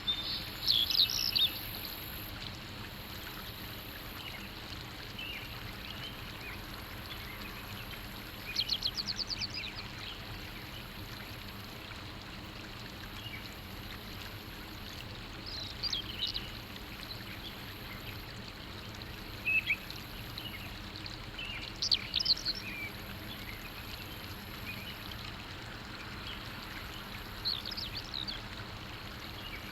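Birds chirping in short, high phrases about six times, over a steady rushing background.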